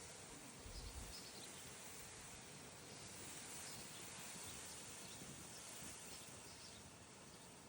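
Faint outdoor garden ambience: a steady low hiss with faint, scattered high bird chirps, and a brief low rumble about a second in.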